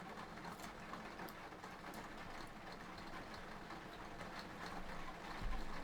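Steady rain falling, a soft even hiss with faint scattered ticks of drops, and a short low thump just before the end.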